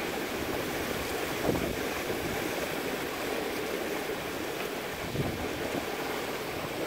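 Sailboat heeled and sailing at about eight and a half knots: steady rush of water along the hull and waves splashing past, with wind buffeting the microphone. A couple of slightly louder splashes come about one and a half and five seconds in.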